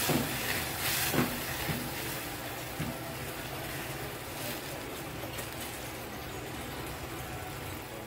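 Lentil cooking water sizzling and bubbling in a hot saucepan of toasted rice, just poured in. A silicone spatula stirs and knocks against the pan a few times in the first couple of seconds.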